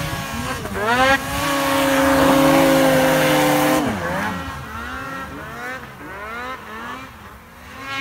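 Snowmobile engines revving hard: the pitch sweeps sharply up about a second in, holds at high revs for nearly three seconds, then falls away and wavers at lower revs.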